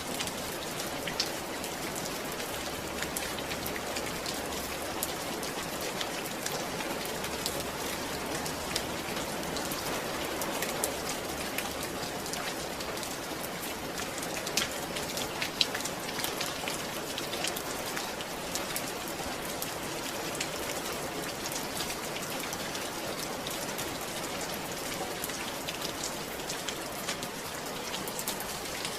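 Steady rain, with many individual drops ticking on a surface.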